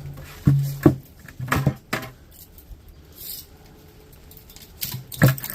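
Scattered knocks and clatters of dehumidifier scrap parts being handled and set down: a cluster in the first two seconds, a quieter stretch, then a couple more knocks near the end.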